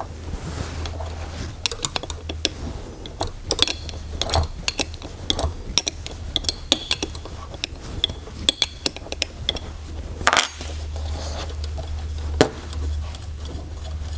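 Metal clicks and clinks of a 10 mm wrench and small steel airgun parts being handled while a fitting on an FX Wildcat action is undone, with a couple of louder knocks near the end, over a steady low hum.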